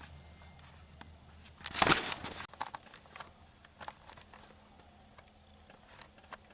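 A loud rustling burst lasting under a second about two seconds in, followed by scattered small clicks, close to the microphone.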